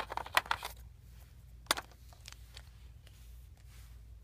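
Close handling noise: a quick cluster of light clicks and taps in the first second and a single sharp click a little under two seconds in, then faint ticks over a steady low hum.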